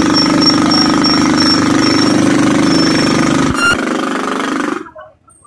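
Motorcycle engine running steadily, with a short click about three and a half seconds in; the engine sound cuts off suddenly near the end.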